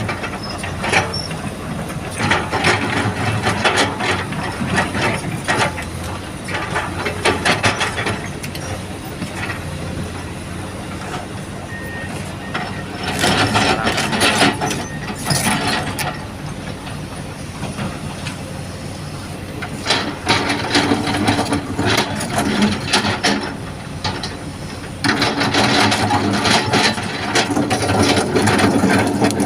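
Komatsu excavator's diesel engine running steadily under load, with repeated bouts of rocks clattering and scraping against the steel bucket as the excavator spreads stone.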